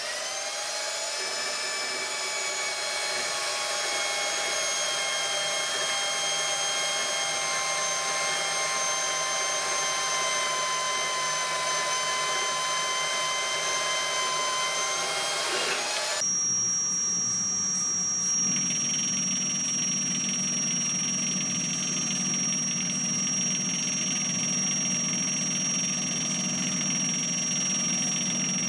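A FLEX SBG 4908 metal-cutting band saw spins up and runs steadily, sawing through a toothed XL timing-bar profile. About sixteen seconds in it cuts off abruptly and a metal lathe runs instead, with a steady high whine over a lower hum.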